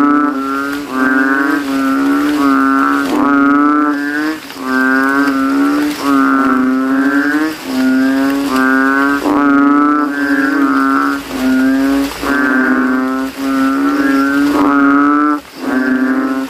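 Banded bullfrog (Kaloula pulchra) calling with its throat sac blown up: loud, deep calls repeated about once a second, in a chorus of rival males.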